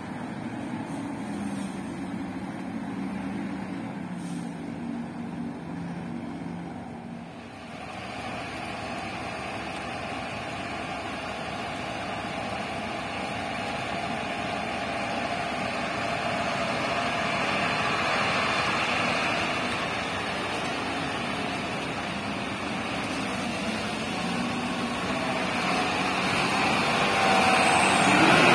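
Diesel dump truck engines: one truck pulling away with a steady low drone, then, after a cut about seven seconds in, a Sinotruk Hohan tipper approaching, its engine and the rush of water from its wheels in a flooded causeway growing louder toward the end.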